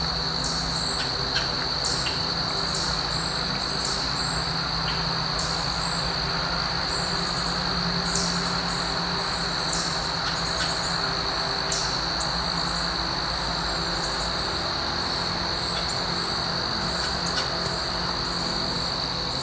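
Steady high-pitched insect chorus, typical of crickets, with short high bird chirps repeating every second or two over a low steady rumble.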